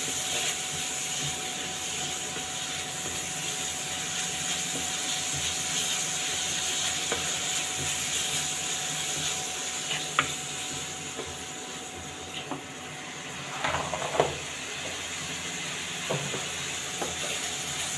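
Finely chopped onions, green chillies and spices frying in mustard oil in a pan, with a steady sizzle while a spatula stirs and scrapes them. The spatula clicks and knocks against the pan a few times, once about ten seconds in, in a short cluster around fourteen seconds, and twice near the end.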